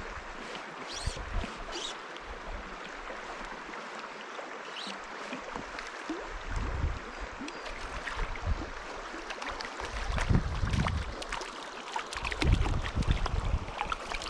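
Steady rush of a small stream's flowing water, with gusts of wind buffeting the microphone in low rumbles that come more often and louder in the second half.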